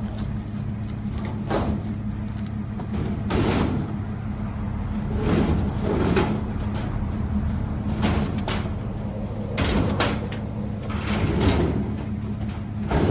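Vehicle engine running steadily, with about ten sharp clunks and scrapes at irregular moments over it.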